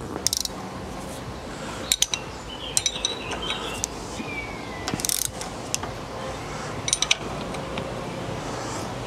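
Ratchet wrench clicking in several short, irregular bursts as it turns the bolt of a tine on a hay tedder's rotor arm, with light metal clinks.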